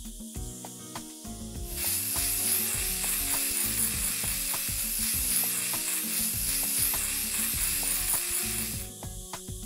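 A long steady hiss sound effect, starting about two seconds in and stopping about a second before the end, over light background music.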